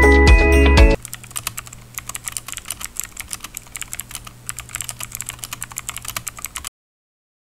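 An upbeat music jingle ends about a second in. Rapid computer-keyboard typing clicks follow, a typing sound effect, and cut off shortly before the end, leaving silence.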